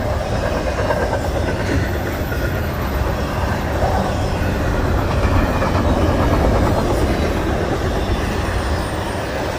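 Double-stack intermodal freight train's container-laden well cars rolling past, a steady noise of steel wheels running on the rails.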